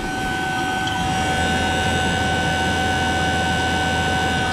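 Fieldpiece VP85 8 CFM vacuum pump running while evacuating an air-conditioning system: an even motor hum with a steady high whine, a little louder from about a second in.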